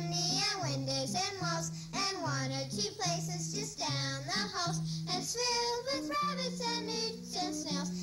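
Children singing the show's opening theme song over instrumental backing, with a bass line stepping back and forth between two low notes.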